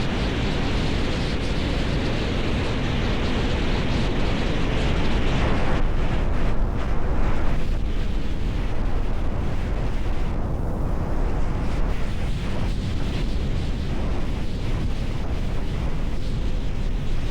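Strong wind buffeting the microphone: a loud, constant low rumble with gusts. A brighter rushing layer on top thins out about six seconds in.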